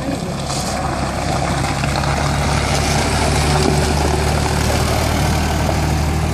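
Ferret Mk 2 armoured scout car's Rolls-Royce B60 six-cylinder petrol engine running steadily as the car drives past close by and away, growing a little louder towards the middle.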